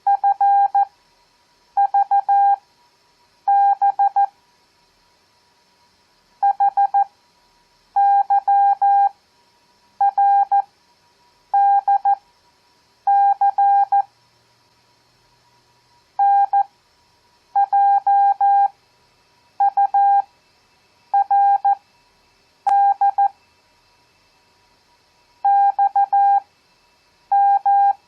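Morse code (CW) tone at one steady pitch, keyed in quick dits and dahs that send random letters, numbers and punctuation at 14 words per minute. Farnsworth spacing stretches the pause after each character to about a second, slowing the overall rate to 7 words per minute.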